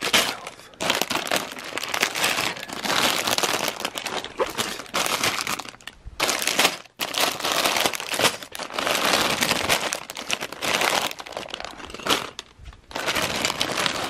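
Clear plastic bags full of LEGO pieces crinkling as they are picked up and shuffled about, in irregular bursts with a few short lulls.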